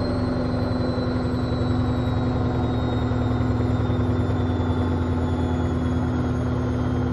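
Hoover Optima OPH716DF washing machine running down from a 1600 rpm spin: a steady low rumble and hum from the drum, with a motor whine that falls slowly in pitch as the drum decelerates.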